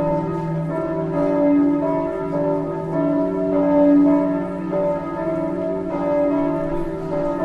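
A church bell ringing repeatedly, its strokes coming every second or two, each one ringing on under the next.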